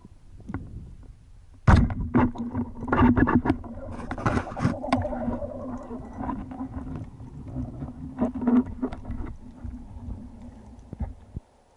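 Speargun fired underwater: a sudden sharp crack about two seconds in, then several clattering knocks and rumbling water noise over a steady low hum that dies away near the end.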